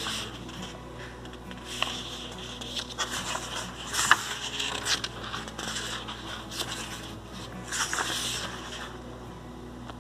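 Paper pages of a thick book being turned and leafed through: rustling and flapping in irregular bursts, with a few sharp flicks.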